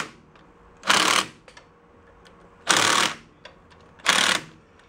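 Cordless driver run in three short bursts a second or two apart, running the cover screws down into a VW bus rear gear reduction box, with faint clicks between the bursts.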